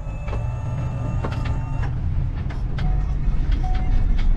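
A vehicle in motion: a steady low rumble with scattered knocks and rattles.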